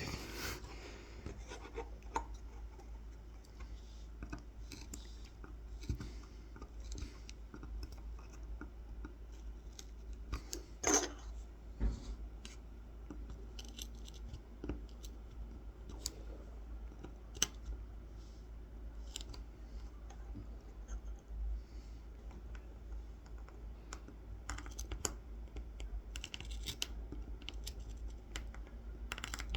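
Kolrosing knife scoring fine lines into a carved wooden honey dipper: faint, irregular little scratches and clicks of the blade tip cutting into the wood, with one louder scrape about eleven seconds in.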